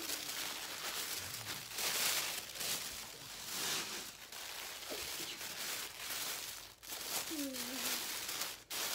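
Tissue paper rustling and crinkling as it is handled and unfolded, in uneven swells.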